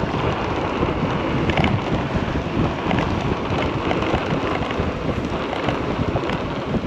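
Steady wind rushing and buffeting over the microphone on a fast-moving electric bike.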